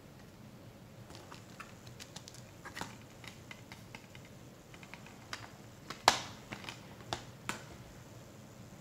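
Plastic clicks and taps from handling an open multi-disc Blu-ray case as its hinged clear disc tray is turned over and a disc is taken off its hub. The loudest is one sharp snap about six seconds in, followed by a few lighter clicks.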